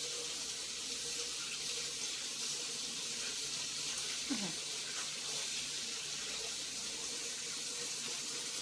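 Water running steadily from a sink tap as hands are washed of sticky slime and glue.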